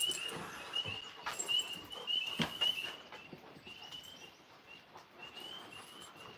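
Outdoor night ambience: a short, high chirp repeating every half second or so, with a few sharp knocks and rustles from the dogs moving about in the first three seconds.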